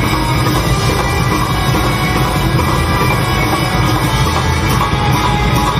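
Live rock band playing loudly and without a break: drum kit, electric guitar and upright bass.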